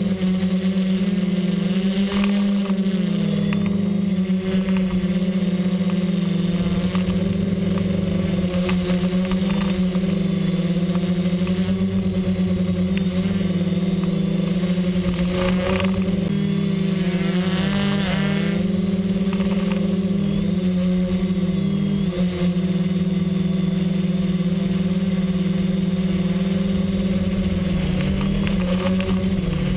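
XAircraft X650 V4 quadcopter's motors and propellers humming steadily, heard from the GoPro mounted on the aircraft, the pitch dipping briefly a few times.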